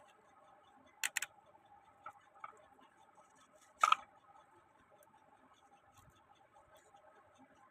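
A few sharp clicks of small parts being handled and worked on: a quick double click about a second in, two faint ticks, and a louder click near four seconds, over a faint steady hum.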